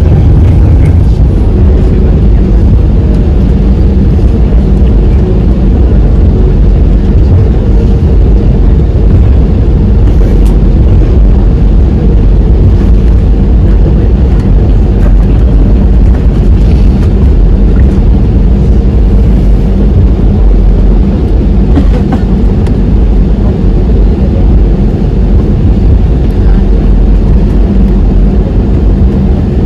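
Airbus A320neo taxiing after landing, heard inside the cabin: a loud, steady low rumble from the tyres and idling engines, with a faint steady hum and a few light knocks.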